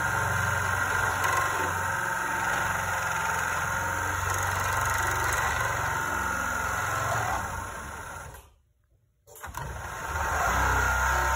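Screw-drive garage door opener running, its motor humming as the threaded rod turns in the rail. The sound fades about seven and a half seconds in, stops for under a second, then starts up again.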